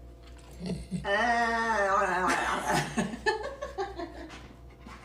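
A long wavering vocal cry lasting just over a second, followed by a young woman laughing hard in broken bursts that fade toward the end.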